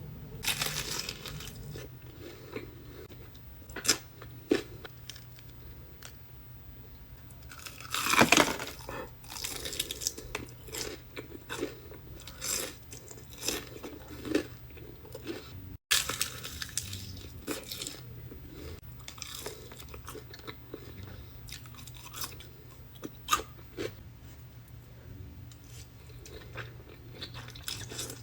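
Crispy fried chicken being bitten and chewed, the crust crunching in irregular crackles, with a louder, longer crunch about eight seconds in.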